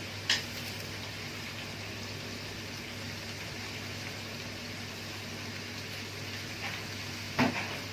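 Pot of water with cut potatoes boiling steadily on the stove, with a sharp click just after the start and a louder knock near the end.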